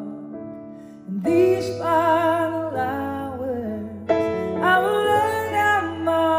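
A woman's voice singing a slow ballad with only piano accompaniment, two phrases with vibrato on the long notes, the first beginning about a second in.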